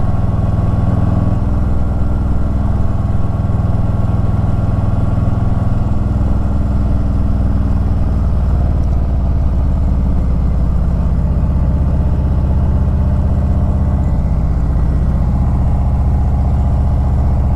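Harley-Davidson Ultra Limited's V-twin engine running steadily while riding a mountain road, heard from the rider's seat. The engine note steps in pitch a few times as the throttle changes.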